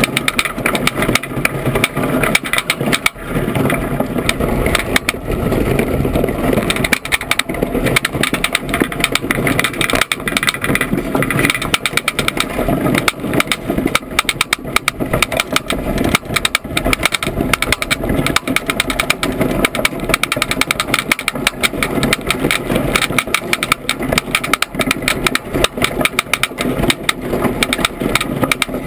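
Continuous loud rumble and rattle of an iceboat's runners sliding fast over lake ice, mixed with wind noise.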